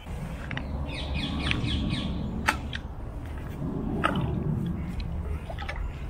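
Litter grabber clicking sharply twice, a little way apart, as it reaches over a shallow stream, over a low, uneven rumble. Birds chirp faintly early on.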